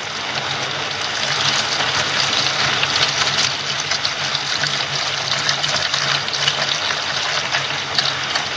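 Water running and splashing steadily, over a low steady hum.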